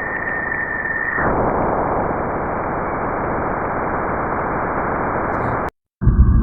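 Spacecraft radio-signal recording played as sound: a dense, steady static hiss, with a high steady tone over it that stops about a second in. Near the end the hiss cuts off abruptly, and after a brief gap a low droning hum begins.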